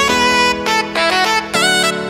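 Instrumental background music: a melody of held, sliding notes over a steady sustained low note.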